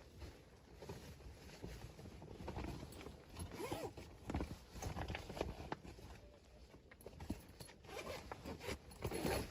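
Irregular rustling, crunching and light knocks, with a few brief squeaks.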